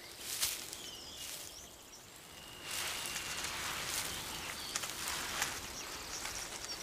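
Outdoor ambience: a rustling hiss that grows louder about three seconds in, with a few faint, high bird chirps and one thin, held whistle-like note.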